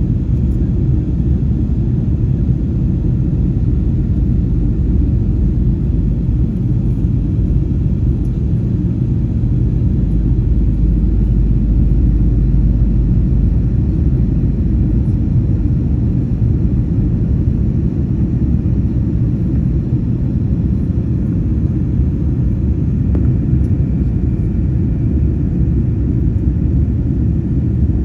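Steady low rumble of airliner cabin noise from a Wizz Air Airbus A320-family jet: engines and airflow heard from inside the cabin, even throughout with no distinct events.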